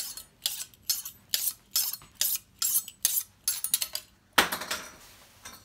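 Chef knife blade drawn through a handheld knife sharpener to polish the edge: quick, light scraping strokes, about three or four a second. About four seconds in comes one longer, louder stroke.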